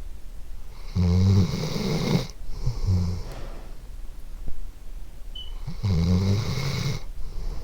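A sleeping dog snoring: two snoring breaths about five seconds apart, each a longer loud breath followed by a shorter one.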